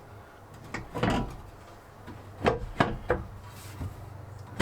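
Sprinter swivel seat adapter being shifted into place on the seat base: a scrape about a second in, then three sharp clunks in quick succession.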